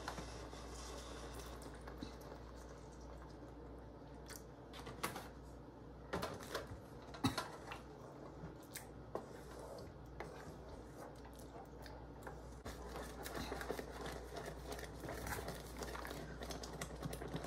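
Porridge being stirred in a pot with a wooden spatula, the spatula knocking and scraping against the pan now and then, over a faint steady hiss.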